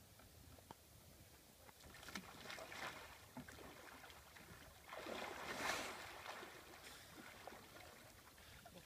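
Water splashing around a kayak during an Eskimo roll: a few short splashes about two seconds in as the boat tips over, then a longer, louder rush of water about five seconds in as the paddler sweeps up and rights the kayak.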